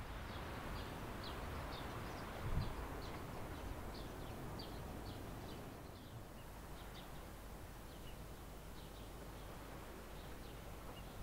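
Small birds chirping, short high notes repeating again and again, over a steady low outdoor rumble. A single soft thump about two and a half seconds in.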